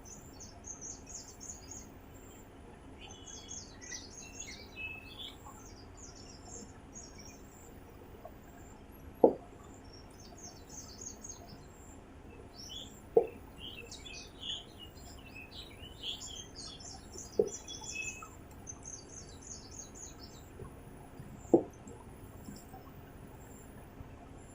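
Someone drinking water from a bottle, with a short loud gulp roughly every four seconds. Birds chirp steadily in the background.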